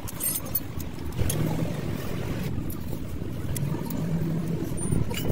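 A motor vehicle engine running steadily, with a few light metallic clicks from hand tools on the brake caliper.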